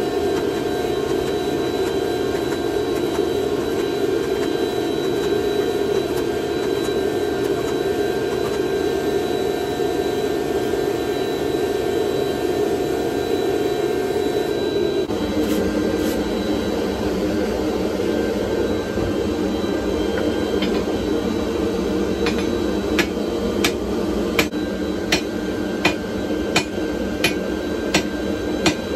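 A loud, steady mechanical roar from shop equipment, which changes tone about halfway through. In the last few seconds a hammer starts striking hot steel at a steady pace, nearly two blows a second, each blow sharp and ringing.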